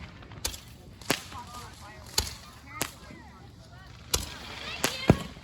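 Fireworks going off: about seven sharp, separate cracks at uneven intervals, the loudest near the end.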